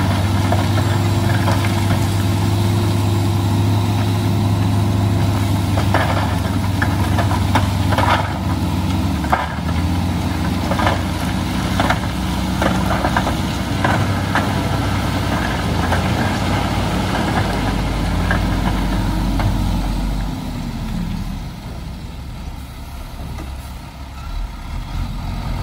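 Dump truck's diesel engine running steadily as its bed tips, with rocks knocking and clattering as the load slides out. About twenty seconds in, the engine's pitch falls and it quietens.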